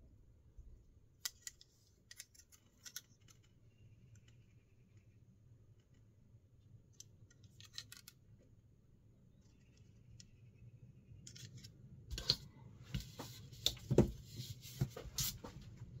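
Kershaw 2032 Esteem slipjoint pocket knife being opened and closed by hand, its double-detent backspring snapping the blade into place. Sharp metallic clicks come singly at first, then a quicker run of clicks and scrapes over the last few seconds.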